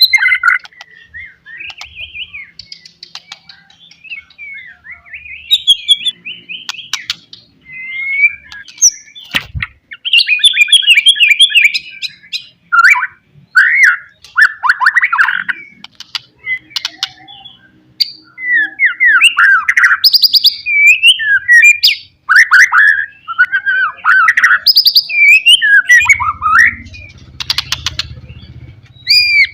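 White-rumped shama (murai batu) singing a loud, varied song of whistled phrases, quick trills and rapid repeated notes, with sharp clicks scattered between phrases.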